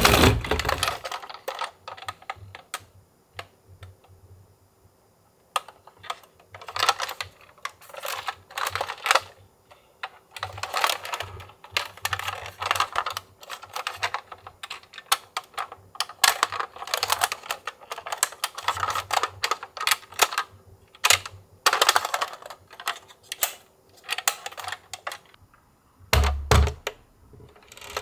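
Small toy cars being handled: many irregular, quick plastic clicks and clacks, with a short lull about four seconds in.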